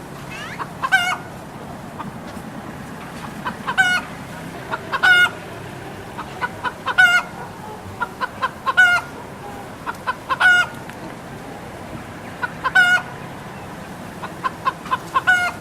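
Red junglefowl squawking: a string of about eight harsh calls, one every one to two seconds, each led in by a few quick short notes.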